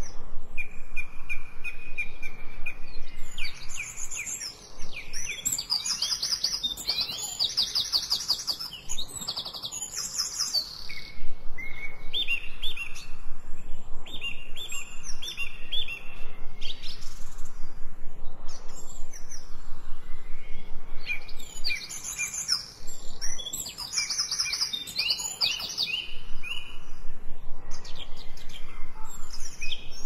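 Songbirds singing: runs of clear repeated notes and fast high trills, with brief lulls.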